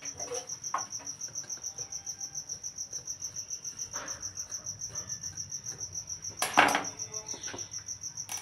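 A cricket trilling steadily with a rapid, even pulsing, over the clicks and knocks of a water purifier's UV lamp being handled and worked with a screwdriver. The loudest knock comes about six and a half seconds in.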